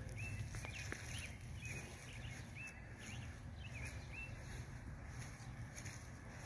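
Small birds chirping: short, high chirps repeated irregularly, about one or two a second, over a steady low rumble.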